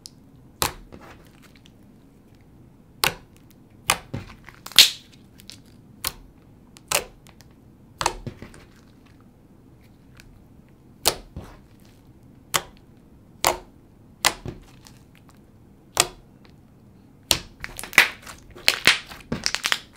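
Thick white school-glue slime squeezed, pressed and stretched by hand, giving irregular sharp pops and clicks as air pockets in it burst. The pops come a second or more apart at first and faster near the end.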